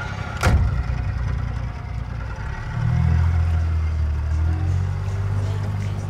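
Outboard motor on a small boat running just after starting, with a single sharp knock about half a second in. About three seconds in it is throttled up and runs louder and steadier.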